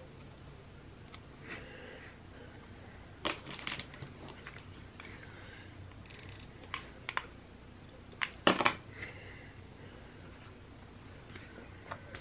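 Desk crafting sounds: a tape runner pressed and rolled across a planner page, with paper and sticker-sheet handling and scattered clicks and taps. The loudest is a short clatter about eight and a half seconds in.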